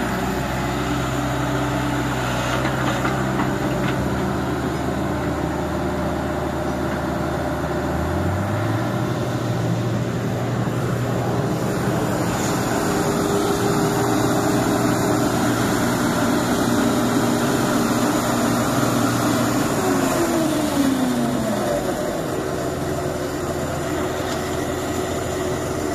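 Heavy diesel engines of a Sumitomo hydraulic excavator and a New Holland 8060 combine harvester running steadily. One engine note steps up in pitch about eight seconds in, and a falling whine comes about twenty seconds in.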